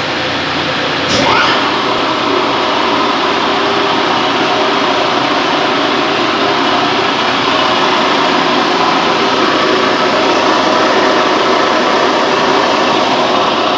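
Secondary chilled water pump running with a loud, steady abnormal mechanical noise, a hum of several tones over a rushing sound, with one short knock about a second in. The technicians put the noise down to the pump's impeller and are replacing the impeller and mechanical seal.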